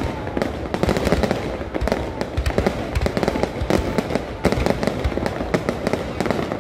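Fireworks display going off: a rapid, continuous stream of overlapping bangs and crackles with no pause.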